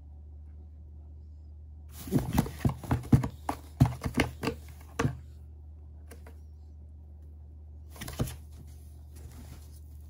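A kitten's claws scratching and batting at the inside of a cardboard box: a run of quick scratchy taps for about three seconds, then one more short burst a few seconds later.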